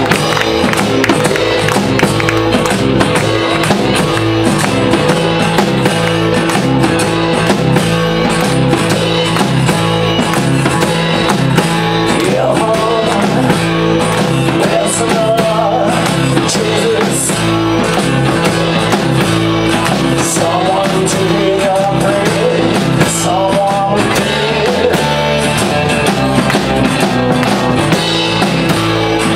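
Live rock and roll band playing: electric and acoustic guitars, bass and drum kit, with a steady beat and a walking bass line.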